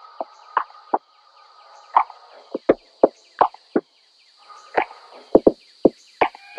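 Irregular knocks and light clatters, about fifteen of varying loudness, as objects are picked up, handled and set down on classroom tables, over a faint steady hiss of room noise.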